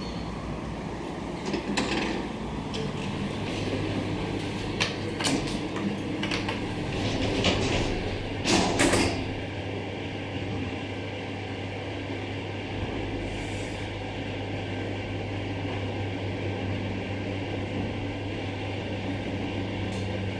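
Otis hydraulic elevator car with its cab fan running steadily. A low, steady hum sets in a few seconds in, and a few clicks and knocks sound, the loudest about nine seconds in.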